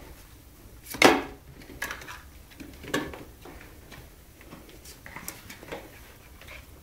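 A few light, scattered knocks and taps, the loudest about a second in, from a small terrier puppy moving about on a mat and nosing at a pig's ear chew.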